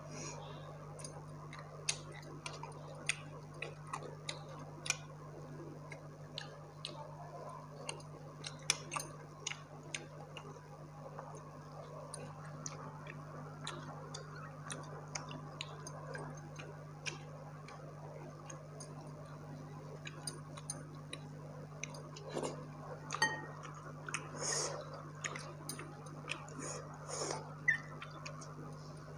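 Close-miked hand-eating sounds: scattered small clicks and crackles of fingers picking through crisp fried dried fish on a plate, busier and wetter near the end as fingers work soaked rice. A steady low hum runs underneath.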